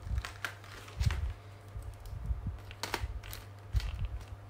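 Hands sorting through colouring supplies: scattered light clicks and rattles with a few soft knocks, over a steady low electrical hum.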